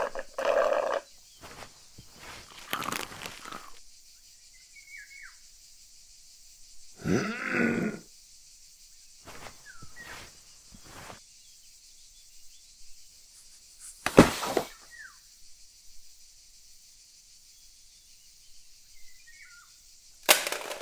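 Sparse sound effects over faint bird chirps: a few short noises in the first seconds, a drawn-out low vocal groan about seven seconds in, a sharp bang about fourteen seconds in, and a loud crash near the end as a radio is knocked down against a metal litter bin.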